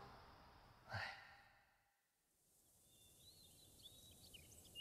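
A short sigh about a second in, then a moment of dead silence. Faint bird chirps then fade in over a light hiss of outdoor ambience.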